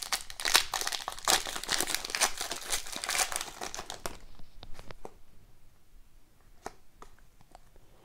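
A foil trading-card pack wrapper being torn open and crinkled for about four seconds, then sparse light clicks as the cards are handled and flipped through.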